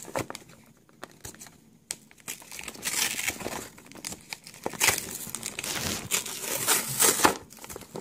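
Cardboard-backed plastic blister pack being torn open by hand, crinkling and tearing in irregular bursts that start about two seconds in.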